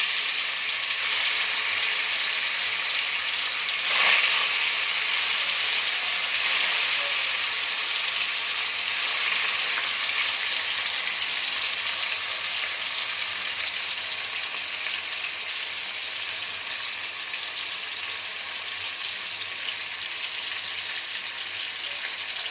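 Spice-marinated chicken pieces frying in hot oil in a pan, with a steady sizzle. A brief louder crackle comes about four seconds in, and the sizzle eases slightly toward the end.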